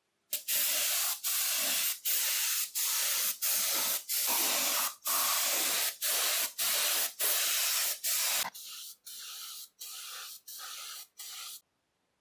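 Aerosol spray can hissing in a run of short bursts, roughly one and a half a second, each starting and stopping sharply; the last six, near the end, are quieter.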